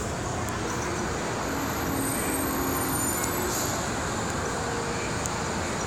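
Steady rumbling hum of model trains running on a large model railroad layout, blended with the general background noise of a busy exhibit hall.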